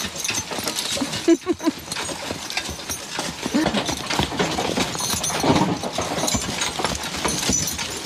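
Team of Belgian draft horses walking, their hooves clopping steadily on leaf-covered ground, along with the rattle of their harness and the wagon they pull.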